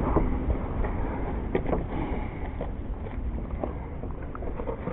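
Steady low rumble of wind on the microphone, with a few faint, short clicks scattered through it.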